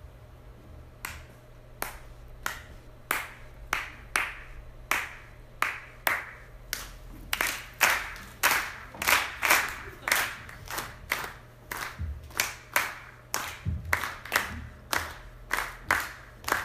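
Steady rhythmic handclaps keeping a slow beat, nearly two claps a second. They start about a second in and grow louder partway through.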